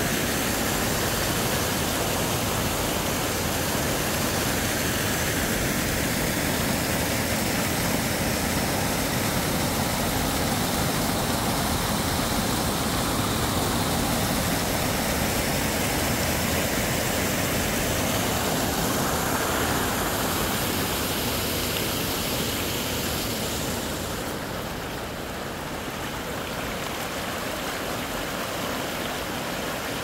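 Mountain stream rushing over rocks: a steady, even rush of water that eases slightly in level about three-quarters of the way through.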